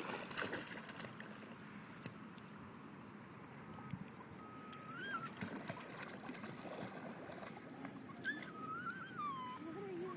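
Small dog whining in thin, high whimpers, about four seconds in and again near the end, over the splash and slosh of shallow lake water as it wades.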